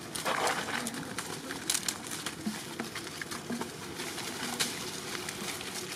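Baby macaques scuffling in dry leaves and knocking a plastic bottle about, giving scattered crackles and rustles, with a louder burst of rustling just after the start. A few short, low calls sound in the background.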